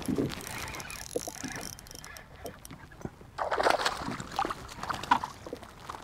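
Irregular splashing, sloshing and knocking on a fishing kayak as a hooked fish is brought in. There is a short burst at the start and a louder stretch of splashing and handling about three and a half seconds in.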